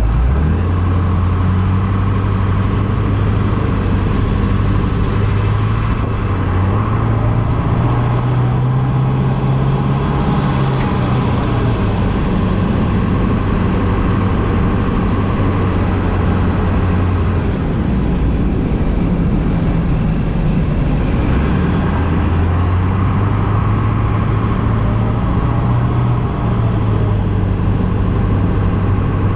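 LB7 Duramax 6.6-litre V8 turbodiesel running, its turbocharger with a billet aluminium compressor wheel whistling. The high whine climbs and falls back with the engine as it is revved, once in the first half and again in the second.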